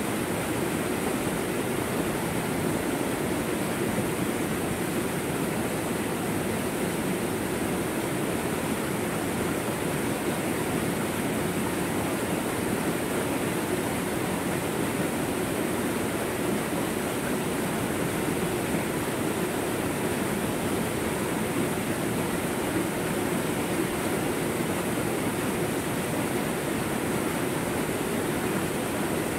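Fast-flowing rocky stream cascading over boulders in a small rapid, a steady unbroken rush of water.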